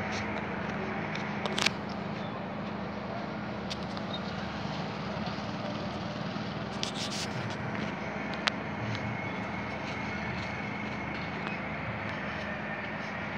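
Steady engine hum with one constant low tone over an even noise, broken by a few short sharp clicks.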